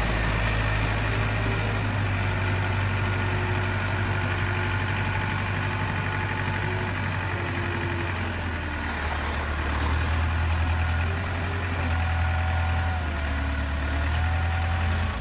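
Engine sound of a heavy diesel construction machine, running steadily as a low hum, laid over the toy Caterpillar track loader at play. Its pitch shifts about ten seconds in, and it stops abruptly at the very end.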